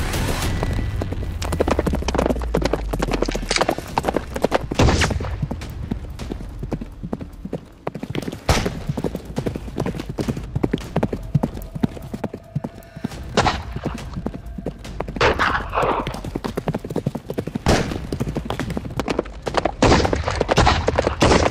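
Hoofbeats of galloping horses, fast and continuous, with a horse neighing once partway through. A black-powder rifle shot comes near the end.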